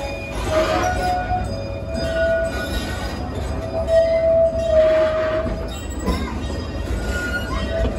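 Theme-park passenger train rolling along the track, heard from on board: a steady low rumble with a wavering high-pitched squeal and a few brief swells of hiss.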